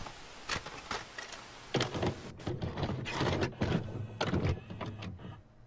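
Video cassette recorder sound effect of a tape being loaded and played: a string of irregular mechanical clunks and clicks over a light hiss.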